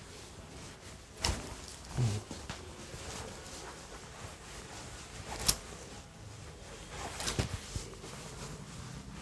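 A few sharp clicks and knocks over faint background noise. The loudest comes about five and a half seconds in, and a short cluster follows a couple of seconds later.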